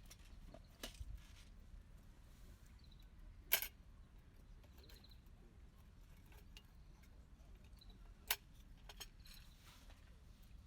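A few sparse, light clinks and knocks of small hard objects being handled, the loudest about a third of the way in and another near the end, over a faint outdoor background.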